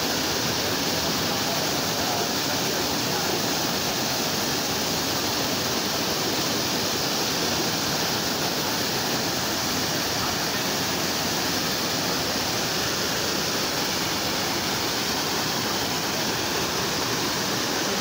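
Small waterfall pouring into a rock pool: a steady, unbroken rush of falling and splashing water.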